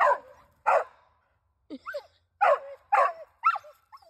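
Young dog barking at dogs beyond the fence: a run of about seven sharp barks and yips, some higher with a pitch that rises and falls.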